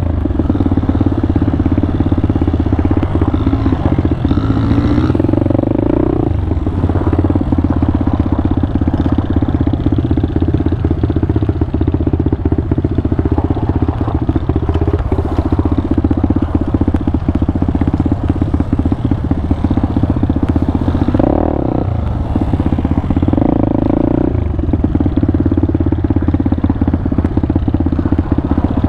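Pitster Pro 190 pit bike's single-cylinder four-stroke engine running steadily while riding, its pitch shifting a few times as the throttle changes, with light clattering over it.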